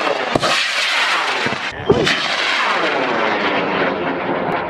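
High-power rocket motor roaring at launch, with a couple of sharp cracks, the sound thinning and fading as the rocket climbs away.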